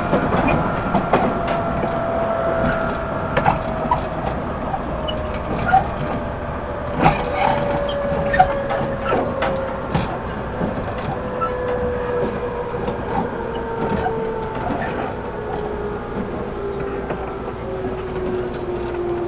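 Interior running sound of a JR 211 series 5000 subseries electric multiple unit, recorded in its motor car: the traction motor and gear whine falls steadily in pitch as the train slows, with sharp wheel clicks over rail joints.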